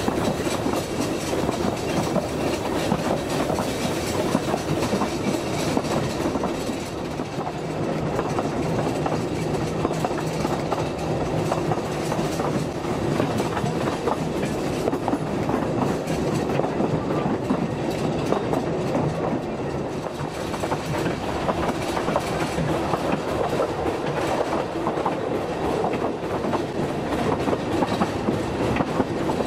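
Talyllyn Railway narrow-gauge passenger carriage running along the line, heard from an open carriage window: a steady rumble with the wheels clattering over the rail joints.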